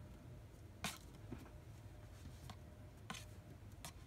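Trading cards being handled and laid down on a wooden table: a few faint taps and slides, about a second in, at three seconds and near the end, over a low steady room hum.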